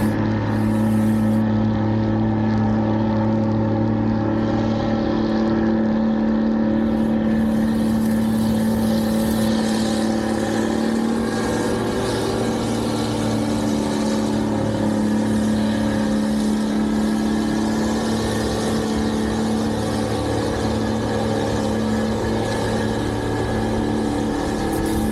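Engine of snow-removal machinery running steadily with a constant hum, joined by a hissing rush from about seven seconds in.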